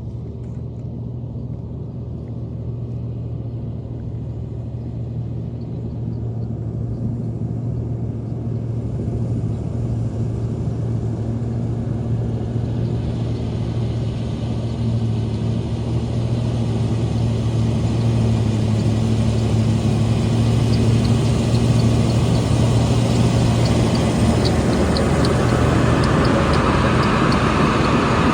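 Combine harvester's diesel engine running steadily under load, a low even hum that grows steadily louder, with more rattle and hiss coming in from about halfway. The hum changes pitch a few seconds before the end.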